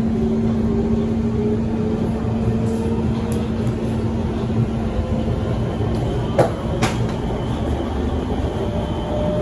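Kawasaki Heavy Industries C151 metro train heard from inside the car as it pulls away, a steady hum under a traction-motor whine that slowly rises in pitch as the train gathers speed. Two sharp knocks close together about six and a half seconds in.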